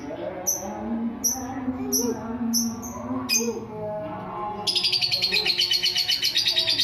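A bird calling: a series of short, sharp, high chirps, about two to three a second, then a fast, high trill of rapid pulses near the end.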